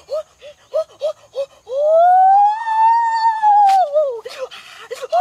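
A man's high-pitched vocal exclamations of excitement: a quick run of short yelps, then one long drawn-out 'oooh' that rises and falls and ends in a downward slide.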